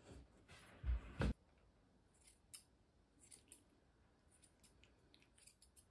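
Grooming scissors snipping a Pomeranian puppy's fur, in short, scattered snips. A dull thump about a second in is the loudest sound.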